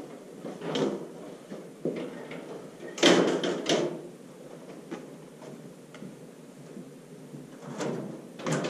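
Stepladder being climbed down, folded and carried: a few knocks as it is stepped down, then a loud clatter of several strokes about three seconds in as the ladder is closed and lifted, with two more knocks near the end.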